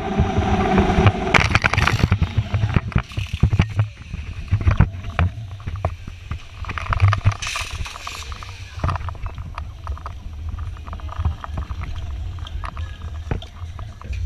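Zip-line trolley pulleys running along the steel cable with a steady whine that stops about a second in as the rider comes into the landing. After that, low rumbling wind buffeting on the microphone with knocks and rattles from the trolley and harness as the rider swings to a stop, and a short loud hiss around the middle.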